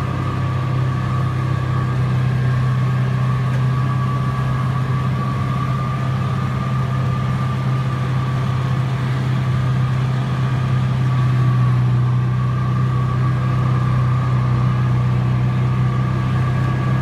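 Tractor engine running steadily under load while it drives a front-mounted mower, heard from inside the cab: an even low drone with a steady, fainter whine above it.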